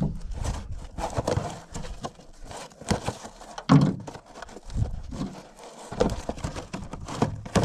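A cardboard parts box being opened and rummaged through by gloved hands: rustling cardboard with a string of irregular knocks and clicks as the parts inside are handled.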